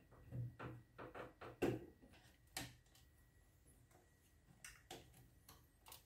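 Faint scattered clicks and rustles of hands handling cables and components inside a PC case, with one sharper knock about a second and a half in.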